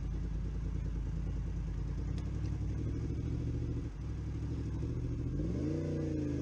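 Motorcycle engine running low and steady, dipping briefly about four seconds in, then revving up with rising pitch as the bike pulls away.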